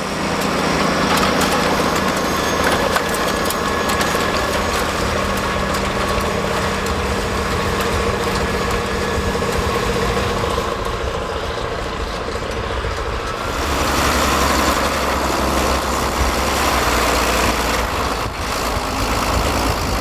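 1982 John Deere 4640 tractor's turbocharged, intercooled 7.6-litre 466 six-cylinder diesel running steadily, growing louder and deeper about two-thirds of the way through.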